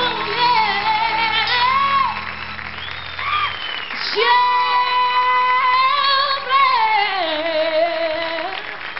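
A woman sings a slow ballad live with band backing, with wavering vocal runs and then a long held note with vibrato that steps down to a lower held note near the end. The low backing chord drops out about three and a half seconds in, leaving the voice more exposed.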